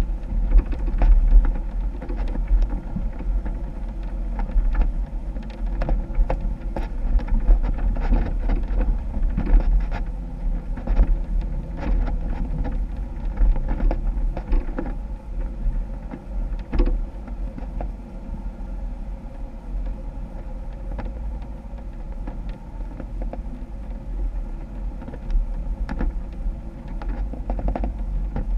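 Jeep engine running while wheeling off-road, with a continuous low rumble and many scattered knocks and clunks.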